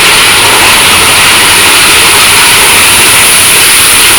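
Big Thunder Mountain Railroad mine-train roller coaster in motion: a loud, steady rushing noise from the ride car running on its track.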